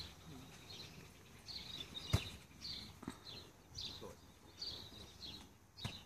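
Birds chirping outdoors: short high calls repeating about once or twice a second. Two sharp knocks come about two seconds in and near the end.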